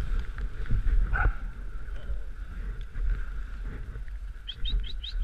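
Dog sled running along a packed-snow trail behind a team of sled dogs: a steady rumble and rattle from the runners and sled frame, with a brief sharp sound about a second in. Near the end comes a quick run of five or so short, high chirps.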